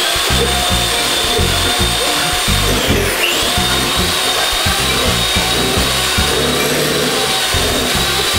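Electric hand mixer running, its beaters creaming butter and sugar in a glass bowl, with a steady high motor whine whose pitch dips briefly about three seconds in. Background music plays underneath.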